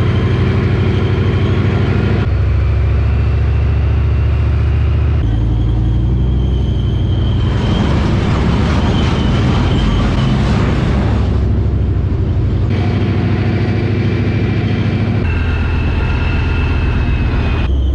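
German Leopard tank on the move, heard from on top of the hull: its diesel engine drones loudly and steadily, with a thin high whine over it. In the middle there is a stretch of louder rushing noise, and the sound changes abruptly several times.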